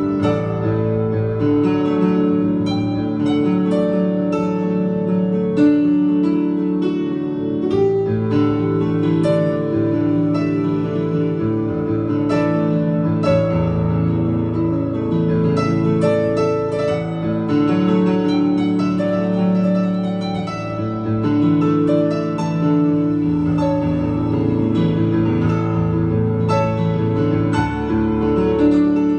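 Electronic keyboard played with both hands: held chords in the low register with higher notes struck over them, in a continuous unbroken passage.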